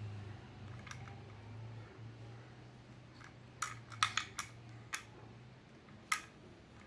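A few sharp clicks and taps of hard objects being handled, a quick cluster about four seconds in and a single one near six seconds, over a low steady hum that fades out about five seconds in.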